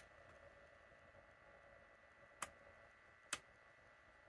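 Detent clicks of a Tektronix 2230 oscilloscope's channel 1 VOLTS/DIV rotary switch being turned a step at a time: a click at the very start, another about two and a half seconds in and a third about a second later. A faint steady whine runs underneath.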